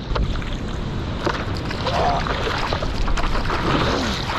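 Sea water rushing and splashing around a surfer's action camera in the surf, with a heavy low rumble of water and wind buffeting the microphone.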